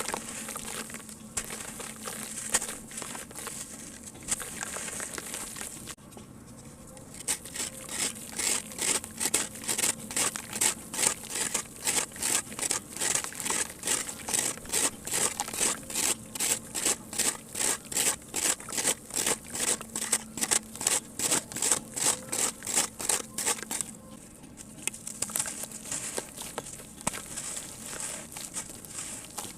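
Hardened sand cement crumbling and being crushed by hand in water, with gritty crunching. In the middle comes a long run of regular crunches, two or three a second; before and after it the crunching is irregular and softer.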